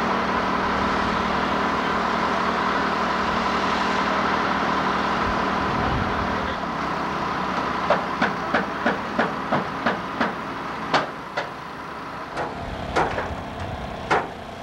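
A heavy mobile crane's engine running steadily with a held hum. About six seconds in it eases off, and a run of sharp knocks begins, about three a second at first and then more spaced out.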